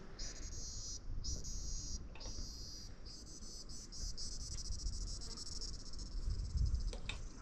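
Insects chirring in a steady, high-pitched chorus that breaks off briefly a few times in the first two seconds, over a low background rumble.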